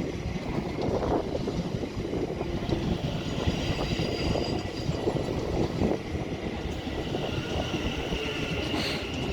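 Class 701 Aventra electric multiple unit running into the platform: a steady rumble from the wheels on the track, with a faint high whine over it.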